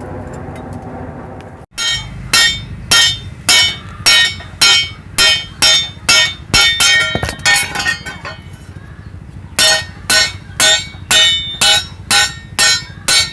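Hand hammer striking steel on an anvil, each blow ringing, in an even rhythm of about two strikes a second. The blows stop for about two seconds partway through, then resume a little faster. Before the hammering, a steady noise cuts off about two seconds in.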